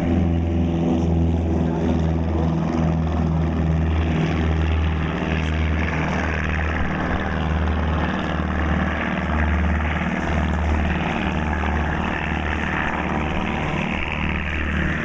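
Propeller airplane's piston engine running steadily, with a slow, regular pulsing throb.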